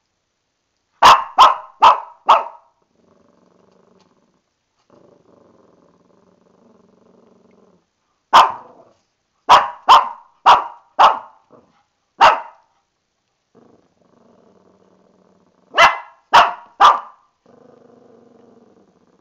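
Shih Tzu puppy barking angrily in quick clusters of sharp yaps, four near the start, about seven in the middle and three near the end, with low, quiet growling between the clusters.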